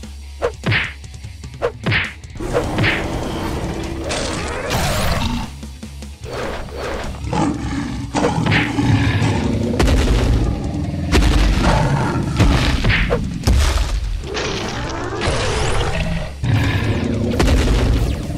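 Action background music overlaid with added fight sound effects: repeated booms and thuds, with heavy low booms from about halfway through.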